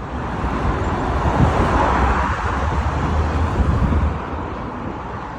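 A vehicle going past with a low rumble and noise, building to its loudest in the middle and easing off near the end.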